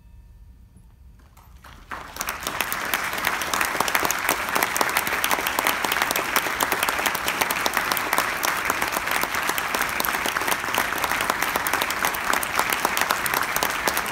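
Audience applauding: a faint held tone dies away, then clapping breaks out suddenly about two seconds in and continues steadily.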